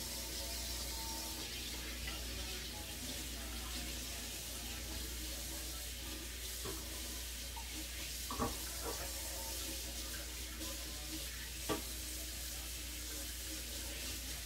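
A few light knocks and clicks of kitchen utensils being handled, over a steady low hum and hiss.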